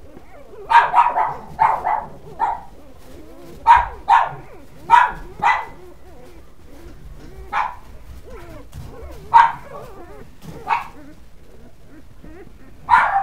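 Brittany mother dog giving short, high whining yelps, about a dozen in uneven clusters with pauses between. She is fretting while her newborn puppies are handled.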